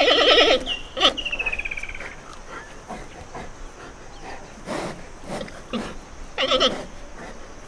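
Giant panda bleating: a loud pulsing bleat at the start, followed by a thin high whine that falls slowly over about a second, and a second, shorter bleat near the end.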